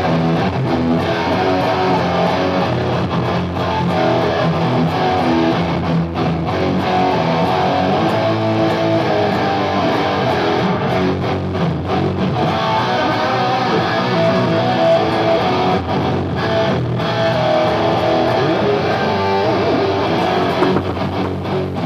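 Electric guitar playing music, continuous and at a steady loudness.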